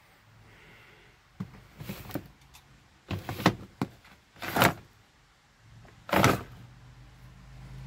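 Plastic drawers of a stacked storage unit sliding open and shut: a series of short scraping slides, the loudest about halfway through and about six seconds in.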